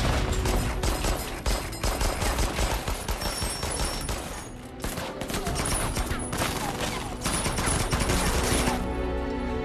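Film battle soundtrack: rapid automatic gunfire in dense volleys, with a brief lull about halfway through, over an orchestral score underneath.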